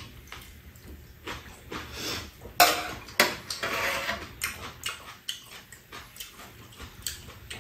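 Two people eating from bowls: metal spoons and chopsticks clicking against bowls and a pan, with chewing and slurping of soup, a louder slurping burst about two and a half seconds in.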